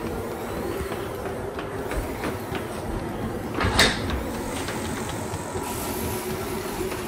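A frosted-glass door to the toilet room being pushed open: one short, loud swish about halfway through, over a steady low hum.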